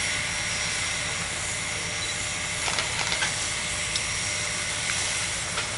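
Steam locomotive Frisco 1630, a 2-10-0, standing with a steady hiss of steam and a faint high ring in it. A few light clicks come about halfway through and near the end.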